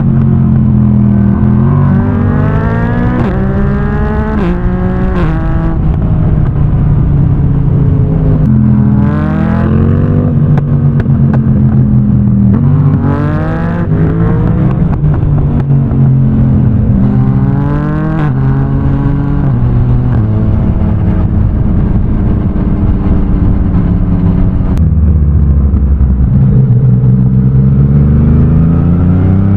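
Yamaha MT motorcycle with an Akrapovic exhaust, accelerating hard through the gears while riding. The pitch climbs in repeated pulls and drops back at each upshift, holds steadier for a few seconds past the middle, then climbs in a long pull near the end.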